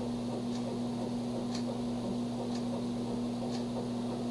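A clock ticking faintly about once a second over a steady low hum.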